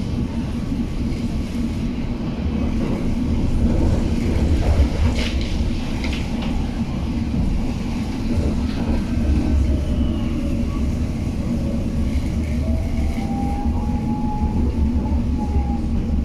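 London Underground District Line S7 Stock train running between stations, heard from inside the carriage: a steady low rumble of wheels on rail with a constant hum. A few clicks come about five seconds in, and a faint whine rises in pitch about twelve seconds in.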